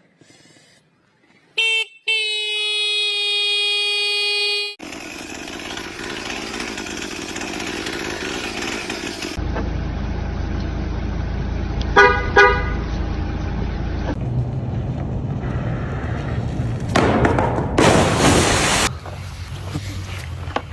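A vehicle horn sounded for about three seconds, then later two quick short honks, over a steady low engine rumble.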